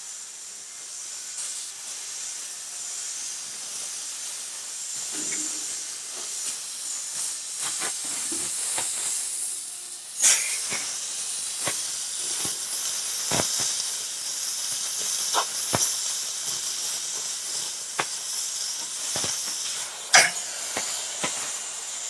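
Oxy-fuel cutting torch hissing steadily as it cuts through 10 mm steel plate, with occasional sharp pops from about ten seconds in, the loudest near ten and twenty seconds in.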